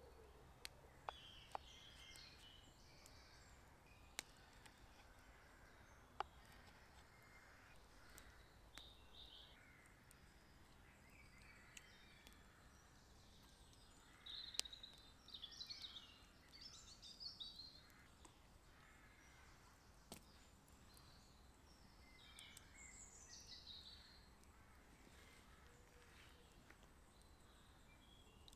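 Faint woodland ambience: songbirds calling on and off, most busily about halfway through and again a little later, with a few sharp clicks in the first several seconds.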